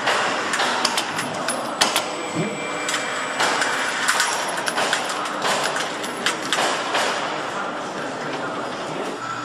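A hand-held pneumatic tool clacks sharply a few times, mostly in the first two seconds, as it is worked along the top of a large cardboard shipping crate. Steady factory noise runs underneath, with a few rushing swells of noise midway.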